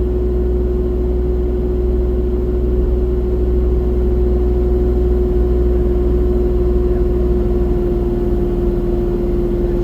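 Excavator's diesel engine running steadily, a constant low rumble with a steady droning tone over it.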